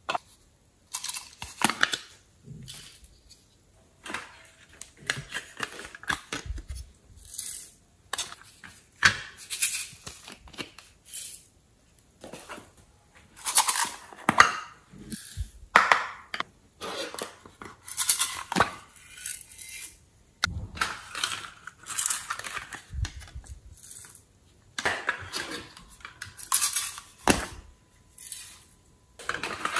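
Small hard-plastic packages and containers handled and opened by hand, in repeated short bursts of crinkling, clicking and tapping, with glitter and sequins shaken out of a plastic cup.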